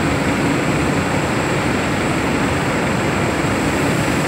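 Steady, loud machinery roar with no breaks, with a faint high whine over it.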